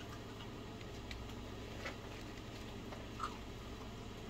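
Soft handling of makeup tools, an eyeshadow brush and palette: a few faint clicks and taps, the last about three seconds in slightly louder, over a steady low room hum.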